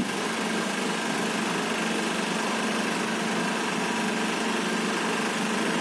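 Motor-driven hydraulic pump of an Aimil concrete compression testing machine running with a steady hum as its ram presses a concrete test cube, the load rising gradually.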